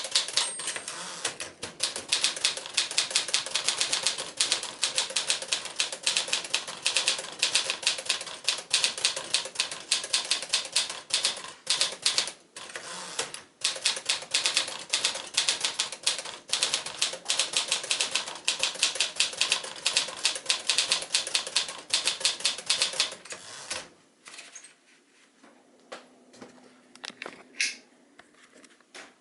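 1954 Smith-Corona Silent manual typewriter being typed on at speed, a rapid run of keystrokes with a short pause near the middle. The typing stops a few seconds before the end, leaving only a few faint, scattered clicks.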